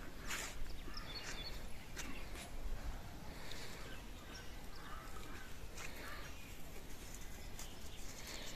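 Outdoor ambience with birds calling intermittently, short scattered chirps, and a few brief sharp taps.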